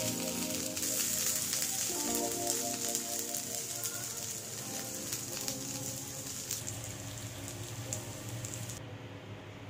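Onion and capsicum pieces sizzling steadily with fine crackles on a hot grill pan; the sizzling drops away sharply near the end. Soft background music plays underneath.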